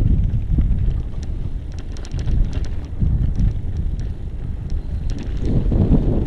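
Wind buffeting the microphone of a moving e-bike, a steady low rumble, with scattered light clicks and rattles over it.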